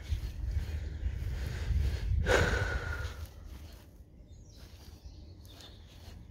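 Low wind rumble on the microphone, with a short breathy noise about two seconds in; it grows quieter after about three and a half seconds.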